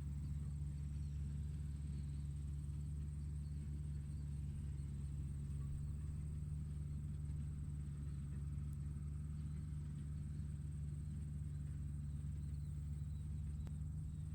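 Tractor engine running at a steady speed, a low, even hum that does not change.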